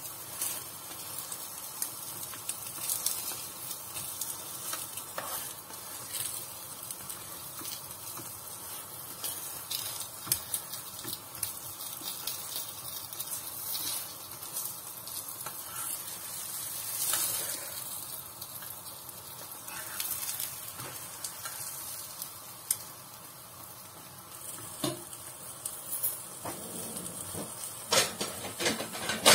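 Raw beef mince paratha sizzling steadily on a tawa as it browns, with scattered crackles. A few sharper knocks come near the end.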